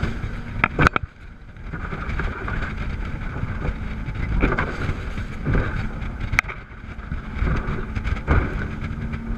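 Wind buffeting the microphone and water rushing past a rigid inflatable boat running at speed, with the hull slapping against waves several times. The twin Yamaha V8 four-stroke outboards hum faintly and steadily underneath.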